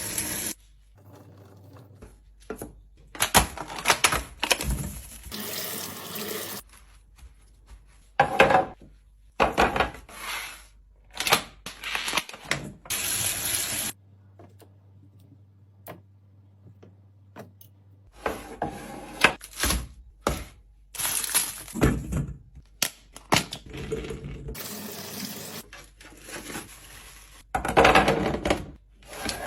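Fridge restocking sounds: containers, jars and packaging being handled and set down, with clicks, knocks and rustles. It comes as a string of short clips, with abrupt cuts and a near-quiet stretch in the middle.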